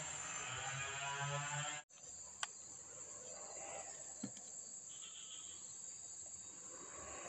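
A steady, high-pitched chorus of insects. Over it, a louder low humming drone stops abruptly about two seconds in. A couple of faint clicks follow.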